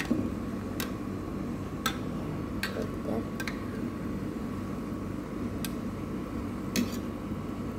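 Metal tongs clicking against a stainless steel pot while bell peppers are turned in boiling water: about six sharp, separate clicks over a steady low background noise.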